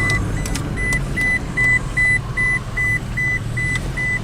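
A vehicle's warning chime beeping repeatedly at a steady high pitch, about two and a half beeps a second, over the low steady running of the idling engine.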